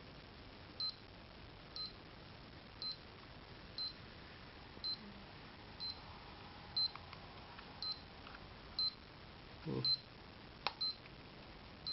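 Short high-pitched beeps, evenly spaced about once a second, from a power supply tester with an LCD display plugged into a PC power supply's 24-pin connector. A sharp click comes near the end.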